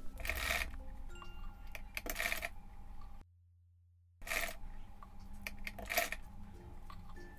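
Sewing machine stitching gathers into net fabric, heard as faint irregular clicks and light metallic clinks, cut by about a second of dead silence near the middle.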